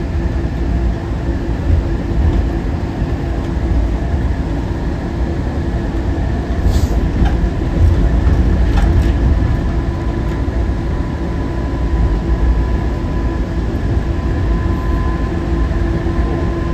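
Newark AirTrain monorail car running between stations, heard from inside the car: a steady low rumble with a constant hum and a higher whine, and a few brief clicks and rattles about halfway through.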